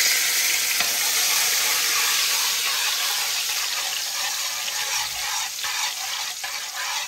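Garlic sizzling as it fries in the hot pot: a loud, steady hiss that starts as it goes in and eases slightly, with a little stirring.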